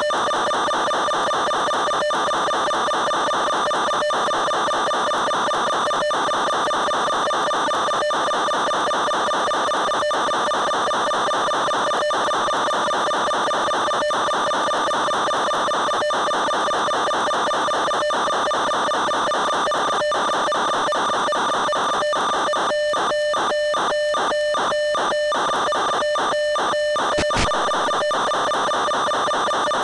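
Steady electrical buzz at one fixed pitch with many overtones, as heard on the audio channel of an analog FPV video link. About 23 seconds in it cuts in and out rapidly, roughly three times a second, for a few seconds, with one sharp click near the end.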